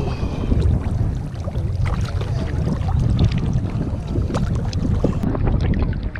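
Wind buffeting the microphone with a steady rumble, over water sloshing and splashing in a hot spring pool.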